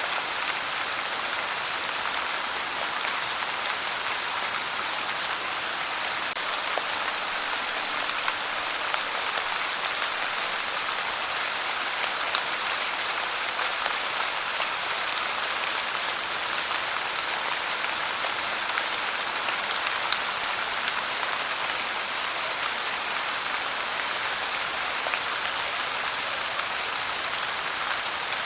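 Steady rain falling and pattering on a surface, an even hiss with many small drop ticks throughout.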